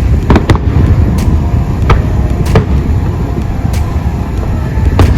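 Fireworks going off: about eight sharp, irregularly spaced bangs and cracks, three in quick succession near the start, over a steady low rumble.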